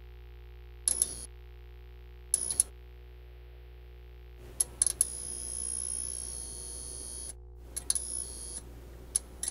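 Glitchy electronic sound effects of an animated intro: short crackling bursts every second or so over a low steady hum, with a high buzzing tone held for about two seconds in the middle.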